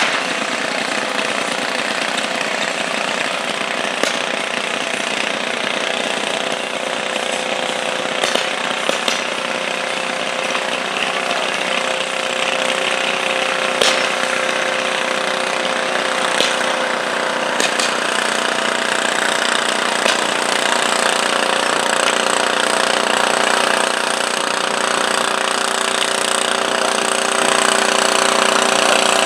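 Stock garden tractor's engine running at full throttle through open vertical exhaust stacks, working hard under load as it pulls a weighted sled. It runs steadily and gets a little louder in the last few seconds.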